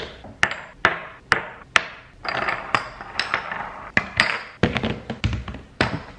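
Spice jars, a can and plastic storage containers set down one after another on a stone kitchen counter, a sharp knock about every half second, over background music.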